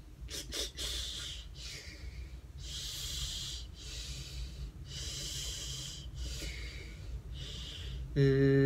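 A man breathing in and out through his mouth with his tongue pressed to the roof of his mouth and his lip corners pulled back, so the air hisses through the gaps at both sides of his tongue, the tongue position for an English L. About seven breaths in a row. Near the end a steady held hum in his voice begins.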